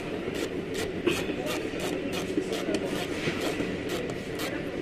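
Irregular sharp clicks and light knocks, roughly two a second, of a screwdriver and plastic parts being worked in a car door's armrest switch housing, over a steady low mechanical drone.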